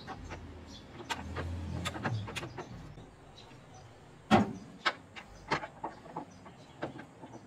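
Scattered clicks and knocks of a hand tool and metal parts being worked under a car's rear suspension, with one sharp knock about four seconds in.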